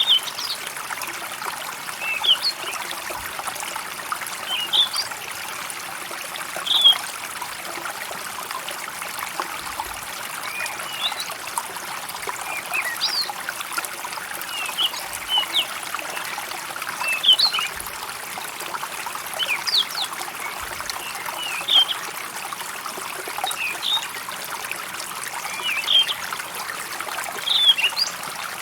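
Small stream trickling steadily, with birds chirping over it in short high calls every second or two.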